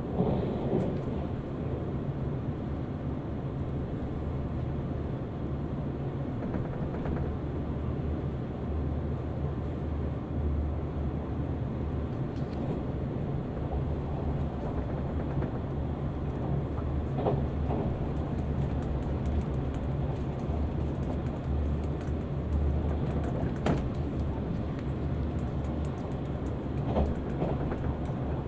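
Steady low rumble of a train running, heard from inside the carriage, with a few faint clicks from the wheels and rails.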